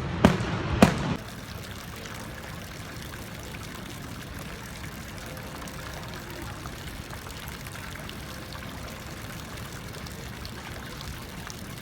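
Two sharp firework bangs in the first second, then a sudden cut to a steady rushing noise with no clear source.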